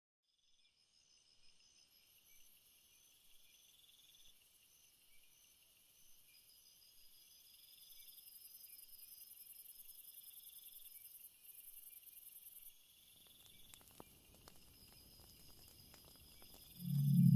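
Crickets chirping in layered, evenly repeating high trills, a night-insect ambience. Shortly before the end a loud deep drone comes in underneath.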